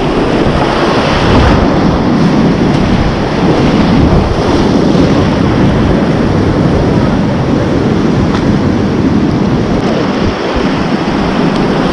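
Loud, steady rush of whitewater rapids around a kayak, with water splashing close to the microphone.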